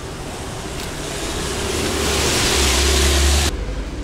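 A car approaching and passing close by on the road. Its rush grows louder for a couple of seconds, then cuts off suddenly about three and a half seconds in.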